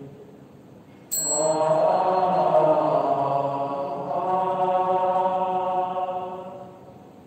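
Buddhist devotional chanting: a long, steadily held chanted syllable begins about a second in and fades out near the end. It opens with a sharp metallic strike whose high ringing lingers for a few seconds.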